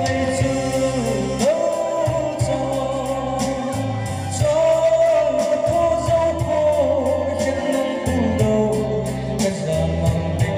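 A man singing a slow melody with long held notes into a microphone, amplified over a PA, with backing music keeping a steady beat.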